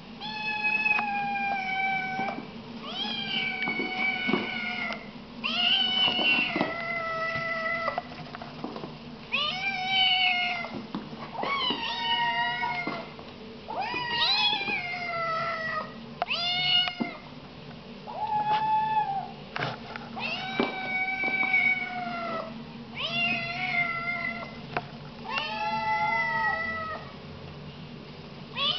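Two Siamese kittens meowing loudly and over and over: about a dozen long, drawn-out meows, one after another with short pauses, some overlapping.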